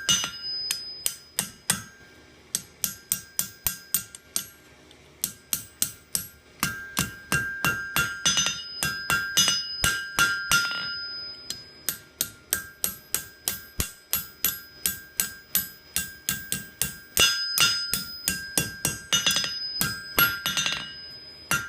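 Blacksmith's hammer striking hot steel round stock on an anvil in quick runs of blows, about four a second, the anvil ringing between blows. The runs break off briefly about four seconds in and again around the middle.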